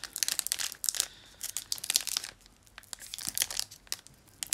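Foil wrapper of a Pokémon booster pack crinkling in irregular short crackles as it is handled and opened.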